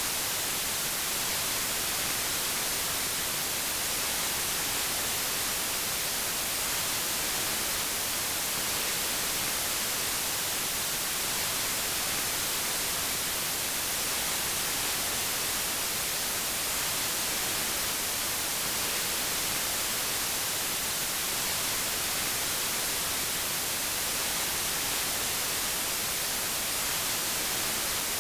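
Steady, unchanging white noise: an even hiss across all pitches, brighter in the high end.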